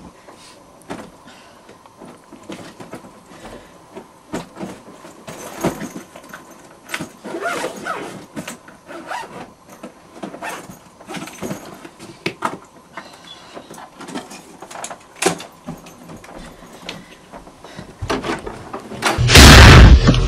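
Scattered light knocks and clicks of objects being handled, then a sudden, very loud burst of noise with heavy bass about nineteen seconds in.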